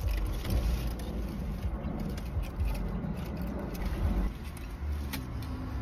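Steady low rumble of a car heard from inside the cabin, with light rustling and a few small clicks from handling a foil-wrapped taco tray and a plastic sauce cup.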